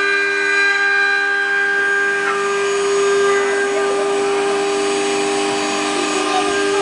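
Multi-spindle 4-axis CNC router running, its row of spindles whining at a steady pitch while the bits carve rotating wooden workpieces, over a rushing hiss of cutting.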